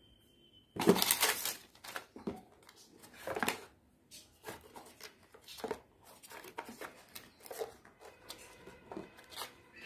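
Handling noise: irregular rustling and clicking from hands moving the phone and the things around it, loudest in a burst about a second in. A brief high steady tone sounds just before the rustling.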